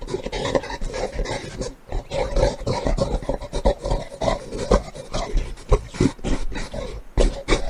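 Gorilla sounds: a rapid, irregular run of short, loud, rough sounds, several a second, with a deep low end.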